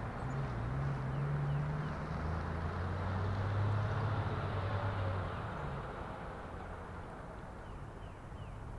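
A vehicle engine running, its low hum sliding up and down in pitch over a steady rumble.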